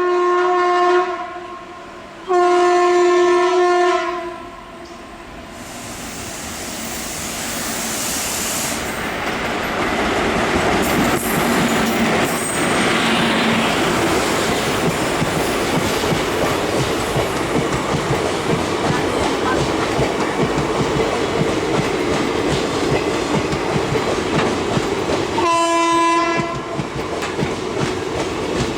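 WCAM 3 electric locomotive's horn sounding two long blasts. The train then comes in and runs past with a rising rumble and wheels clattering over the rail joints. The horn gives a shorter blast near the end.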